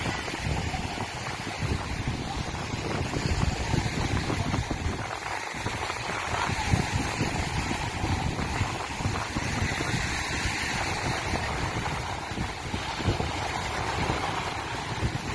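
Wind buffeting the microphone over a steady, dense rumble.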